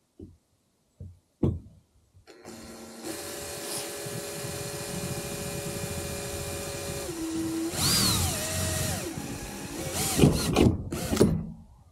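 Makita cordless drill boring a hole in the camper's metal side. After a few clicks the motor starts about two seconds in and whines steadily. Its pitch drops and slides down around the eight-second mark, and there are louder, rougher bursts near the end before it stops.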